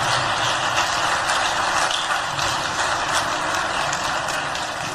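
Crowd applauding, a dense steady clatter of many hands clapping that slowly fades toward the end.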